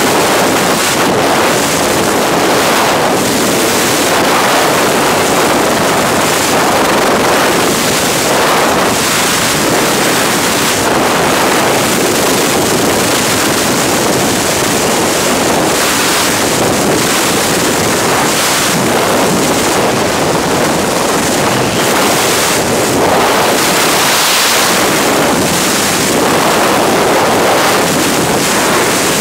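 Loud, steady rush of freefall wind blasting across a camera microphone during a skydive.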